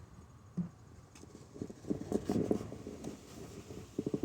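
Light plastic clicks and rattling as the twist-lock bulb socket is worked loose and handled in a removed tail-light housing: a single small knock, then quick bursts of clicking.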